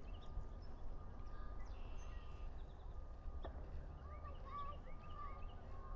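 Osprey calling in a series of short, high whistled chirps, the notes coming in quick runs, over a steady low rumble of wind on the microphone. A single sharp click sounds about three and a half seconds in.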